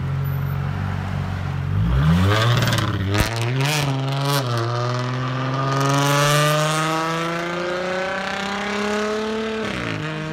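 2012 Dodge Charger's 3.6-litre V6 through a straight-piped dual exhaust, with the resonator and mufflers deleted and the catalytic converters kept: idling, then revving hard as the car pulls away. Revs climb through quick upshifts into one long rising pull, then drop off near the end, with a short knock about three seconds in.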